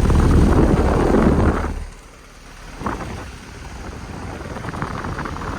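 Outdoor condensing unit of a 2007 Bryant 3-ton air conditioner running with a steady low hum and rattle, which the owner puts down to a badly bent condenser fan blade. The noise drops sharply about two seconds in. A single knock follows about a second later, and the running rattle carries on more quietly.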